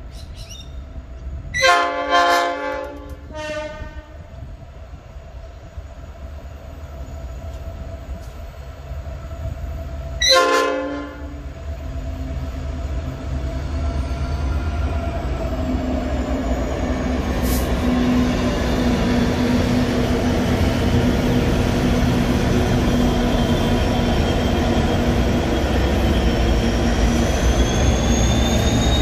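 Diesel-electric locomotives of a freight train sound a multi-tone horn twice about two to four seconds in, and once more about ten seconds in. Then their engines grow steadily louder as the locomotives draw near and pass at close range.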